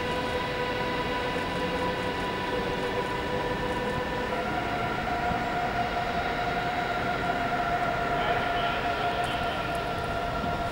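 DB Class 101 electric locomotive's traction converters whining as it pulls its train away, several steady tones together over a low rumble, stepping up in pitch about four seconds in.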